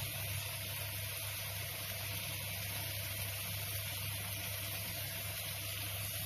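Steady sizzle of tomato masala frying in a pan on the gas stove, with a low hum underneath.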